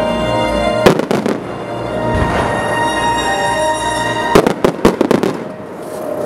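Aerial firework shells bursting, with a sharp bang about a second in and a rapid run of bangs and cracks from about four to five seconds in. Music plays underneath throughout.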